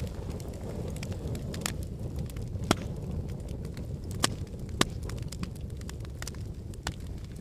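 Fireplace fire crackling: a steady low rumble of flames with sharp pops and snaps at irregular moments, the loudest pops a little under 3 seconds in and just under 5 seconds in.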